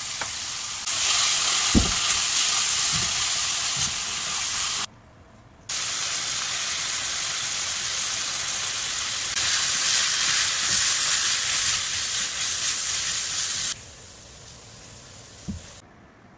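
Beech mushrooms, carrot and onion sizzling in a hot frying pan as they are stir-fried, with a few soft thumps. The sizzle breaks off briefly about five seconds in and falls low near the end.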